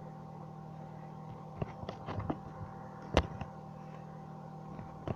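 A few short clicks and knocks, the loudest a sharp knock about three seconds in, over a steady low electrical hum.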